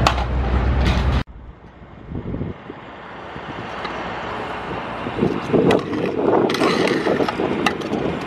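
Stunt scooter on concrete. Busy city noise with a sharp clack at the start, then after a sudden cut, wheels rolling over concrete. The rolling grows louder from about five seconds in, with several sharp clacks of the scooter striking a ledge.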